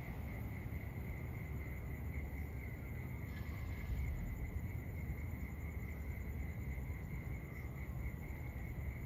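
A steady, high insect trill, typical of crickets at night, over a constant low rumble.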